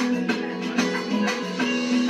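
Instrumental backing music of a slow ballad: plucked-string accompaniment with notes falling in an even rhythm.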